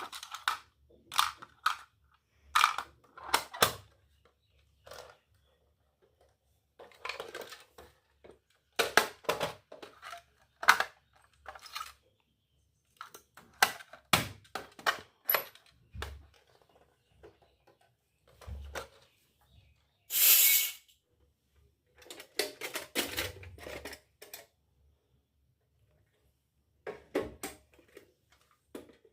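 Miniature steel toy kitchenware and its packaging being handled: irregular small clinks, taps and rustles with short pauses between them, and one louder rustling burst of about a second about two-thirds of the way through.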